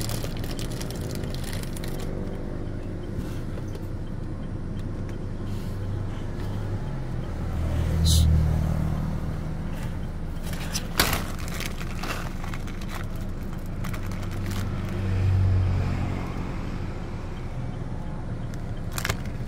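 Road traffic: a steady low engine hum that swells as vehicles pass, about eight and again about fifteen seconds in, with a few sharp clicks.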